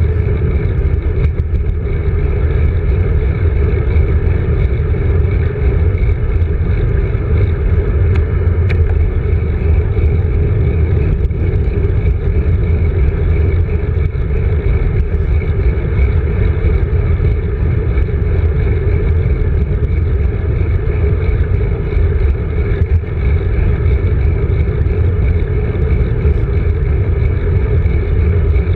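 Steady, loud low rumble of wind and road vibration on a handlebar-mounted GoPro while a road bike rolls along a paved street.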